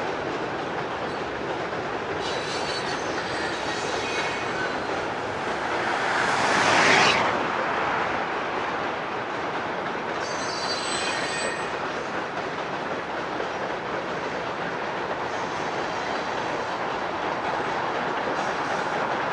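Freight cars of a Vermont Rail System train rolling across a steel trestle: a steady rumble with two brief bouts of high-pitched wheel squeal. About seven seconds in, a louder whoosh rises and cuts off as a road vehicle passes close by.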